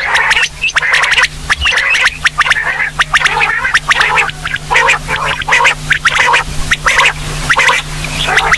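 Female quail calling: short, raspy notes repeated several times a second in quick runs, with brief gaps between the runs.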